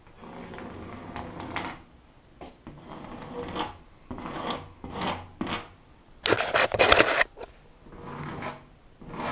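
Short rubbing and scraping strokes, about one a second, as caulk is smoothed by hand along a textured drywall corner. A louder, rougher rub comes about two-thirds of the way through.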